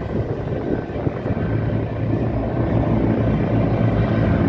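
T-129 ATAK twin-turboshaft attack helicopter flying in the air display: steady rotor and engine noise with a low hum, growing slightly louder.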